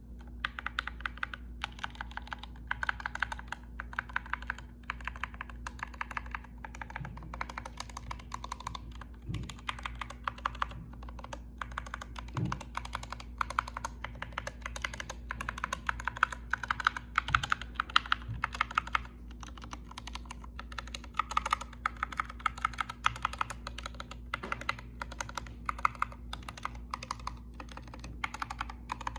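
Rapid typing on a compact 60% mechanical keyboard: a continuous run of keystroke clicks, broken by a few brief pauses.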